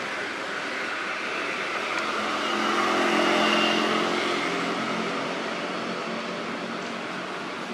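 A motor vehicle passing, its engine sound swelling to its loudest about three and a half seconds in and then fading, over a steady outdoor background hiss.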